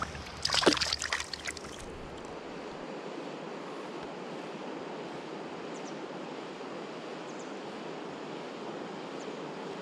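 Water splashing for about a second as a chub is let go by hand into the river, then the steady rush of flowing river water.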